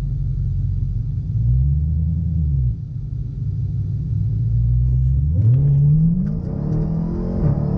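The 2016 Dodge Challenger Hellcat's supercharged 6.2-litre V8, heard from inside the cabin, idles with a brief rev about two seconds in, then from about five seconds its pitch climbs steadily as the car launches and accelerates hard on a 0-60 mph run.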